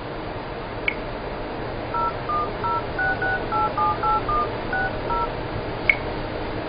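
Phone keypad touch tones: eleven quick two-tone beeps as a phone number is dialed. A short click comes about a second before the beeps and another just after them, over a steady hiss.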